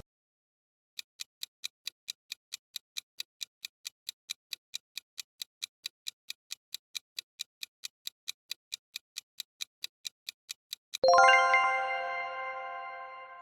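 Clock-like ticking sound effect, about four ticks a second, counting down for roughly ten seconds. About eleven seconds in, a bright bell-like chime of several tones sounds and rings out as it fades.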